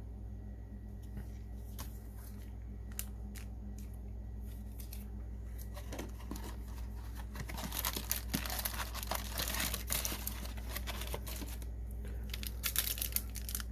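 A few light clicks of cards being handled, then, about six seconds in, a foil trading-card booster-pack wrapper being torn open and crinkled for several seconds.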